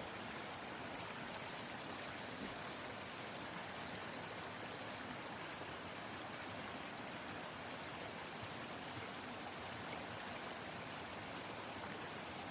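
Steady rush of falling and flowing water from a creek waterfall, an even hiss with no change throughout.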